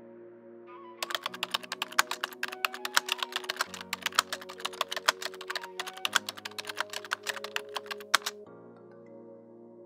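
Computer-keyboard typing sound effect: rapid clicks from about a second in, with a couple of short pauses, stopping a little before the end. Soft background music with long held notes plays underneath.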